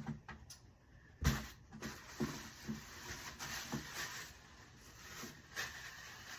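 Objects being handled while an order is packed: one sharp knock about a second in, then a few softer knocks and light rustling.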